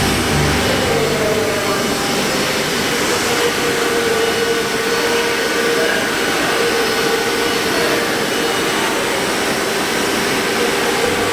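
Large CNC milling machine's spindle running as it cuts wood: a loud, steady rushing noise with a steady whine held at one pitch.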